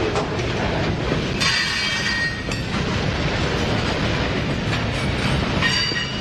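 Freight train boxcars rolling past close by, their steel wheels rumbling and clicking on the rails. Brief high wheel squeals come about a second and a half in and again near the end.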